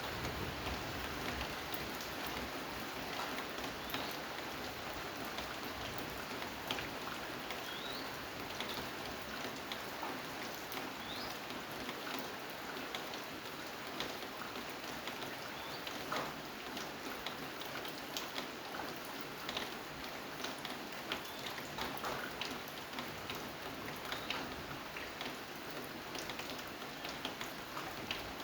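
Steady rain falling, a constant hiss with many individual drops ticking and tapping through it.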